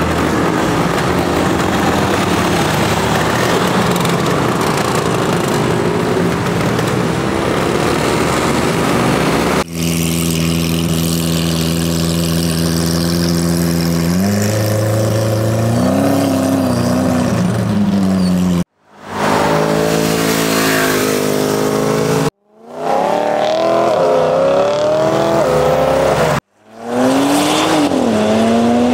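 Classic motor scooters riding past with their small engines running. After a cut about ten seconds in, a Lamborghini Aventador's V12 idles steadily, then revs up as the car pulls away. Several abrupt cuts follow, each to a short burst of engine revving that rises and falls in pitch.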